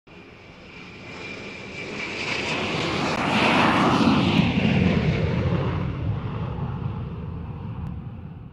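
Aircraft fly-by sound effect: engine noise swells to a peak about four seconds in and then fades away, with a high whine that drops in pitch as it passes.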